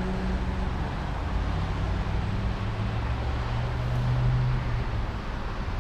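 Diesel engine of an earth mover running steadily, with a steady hiss of machine noise above it. Its hum drops to a lower pitch about halfway through and rises again near the end.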